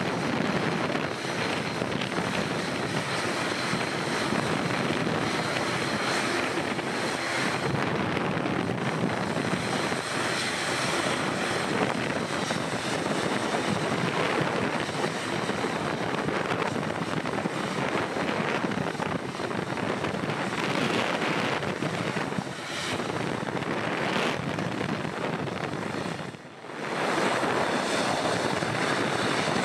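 Airbus A320's CFM56 jet engines running steadily at low thrust as the airliner rolls slowly along the runway, a constant roar with a faint high whine. The sound dips briefly near the end.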